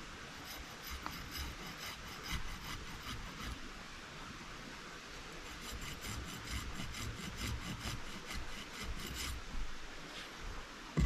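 Hand tool rasping on wood in quick, even strokes, about four or five a second. It comes in two bouts of several seconds each, with a short pause between them.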